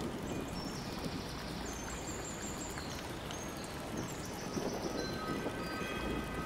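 Steady running water, with wind chimes ringing several overlapping high tones that sound and fade at different moments.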